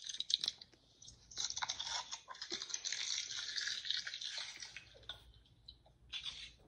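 Fabric rustling and scraping close to the microphone as blankets and cushions are handled, with scattered sharp clicks. The rustling is strongest in the middle and fades near the end.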